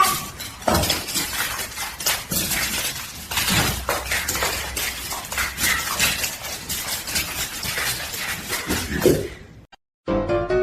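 Irregular clattering with many sharp knocks and clinks, like glass or hard objects knocking together, over a steady rushing noise. It cuts off suddenly about nine and a half seconds in.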